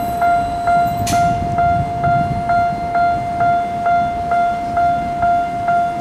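Railway level-crossing warning bell at the Tokyo Metro Ginza Line's Ueno depot crossing, ringing steadily at about two and a half strikes a second: the signal that a train is about to pass.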